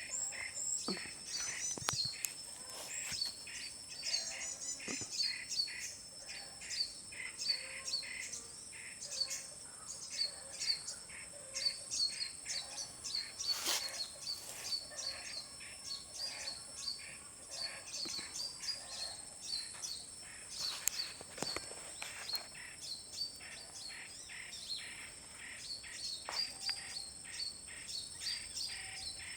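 Many wild birds chirping and calling in quick, overlapping short notes over a steady high-pitched drone, with a couple of sharp clicks.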